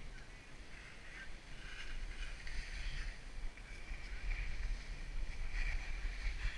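Skis sliding downhill over packed snow, their edges scraping in uneven swells, with a low rumble of wind on the microphone.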